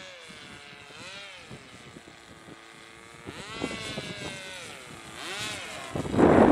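Radio-controlled model airplane's motor and propeller droning overhead, its pitch dipping and rising several times as it throttles and passes. In the last moment a sudden loud rushing noise takes over.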